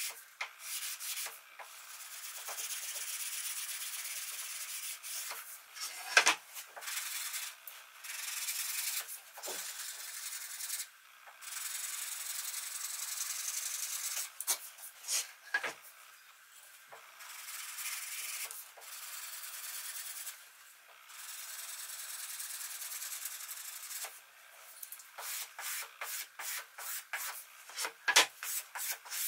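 Hand sanding the edge of a hornbeam cutting board with a sanding block: long, even rubbing strokes, with quicker short strokes in the last few seconds. A few light knocks of the block against the board.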